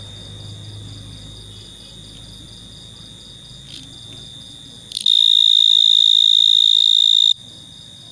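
A cricket singing at its burrow: a steady, high-pitched continuous trill that suddenly becomes very loud about five seconds in, holds for about two seconds, then drops back abruptly. Other crickets trill in a faster pulsing rhythm behind it.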